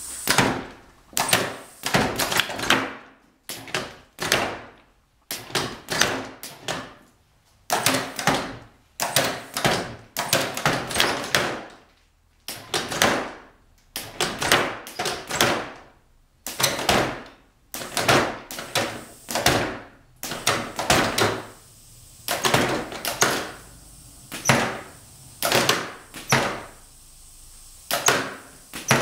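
Pneumatic cylinders on a wooden ground-breaker prop firing over and over, making the arms jerk up and drop back. Each stroke is a sudden knock with a short rush of air. There are about two dozen at uneven intervals, some in quick pairs.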